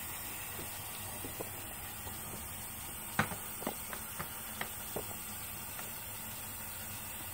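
A quick run of about six light clicks and taps over a steady faint hiss, the sound of small things being handled at the sink.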